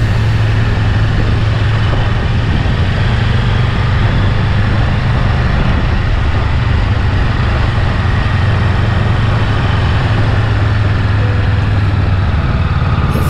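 Motorcycle engine running steadily while riding, a constant low hum under an even rush of wind noise on the microphone.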